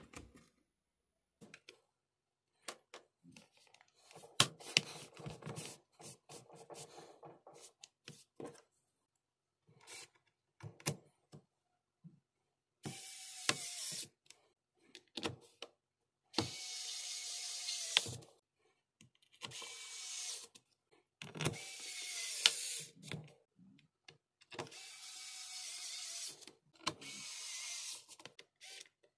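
Electric precision screwdriver driving the small screws of a laptop's metal bottom cover, running in about six short bursts of a second or two, the pitch dropping at the end of each. Before the driver starts, there are clicks and taps of the cover being seated and handled.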